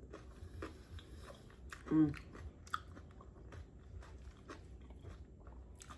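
Close-miked chewing and mouth smacking: irregular soft wet clicks, with a short hummed "mm" about two seconds in.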